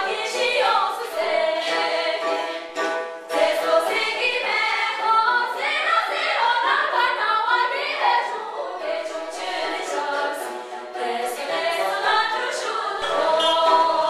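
A group of voices singing together, unaccompanied.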